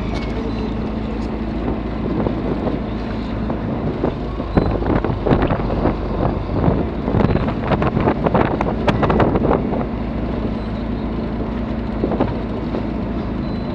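Fishing boat's engine running steadily, with wind on the microphone, and a few seconds of irregular knocking and clattering from about four and a half seconds in to about ten seconds in.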